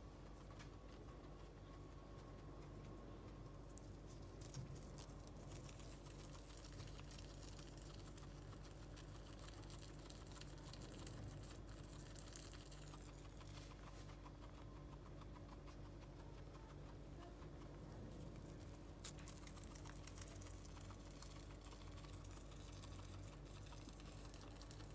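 Guinea pig chewing foxtail grass stems: faint, rapid fine crunching clicks that go on and on.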